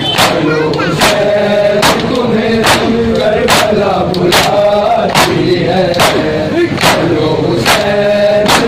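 Matam: a group of men chanting a noha (lament) while a crowd of bare-chested mourners beat their chests in unison, a sharp collective slap a little more than once a second.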